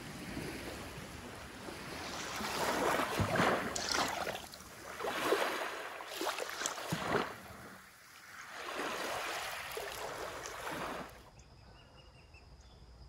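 Small waves washing up onto a sandy beach, the rush of water swelling and fading in about three surges. About eleven seconds in it drops away to a much quieter background with faint, thin, steady high tones.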